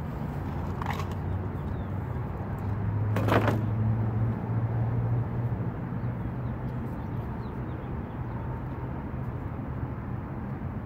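Steady road-traffic rumble, with one vehicle passing louder about three seconds in.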